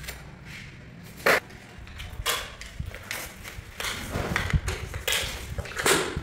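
Plastic tile-levelling clips and wedges knocking and scraping against large porcelain floor tiles as they are set by hand: several short clicks and scuffs, the sharpest about a second in.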